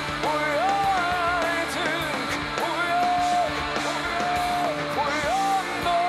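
Live rock band playing: electric guitars over a drum kit, with a melody of held notes that slide up into pitch and then hold.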